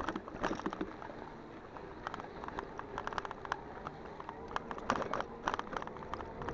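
Electric bicycle ridden over a rough dirt track: the bike and the fishing rod clamped to its handlebars rattle and click in irregular bursts over the bumps, over a faint steady hum.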